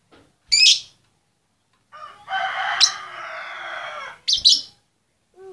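Female lovebird in a cage giving short, shrill chirps twice, about half a second in and again just past four seconds: a contact call to a male. Between the chirps a rooster crows for about two seconds.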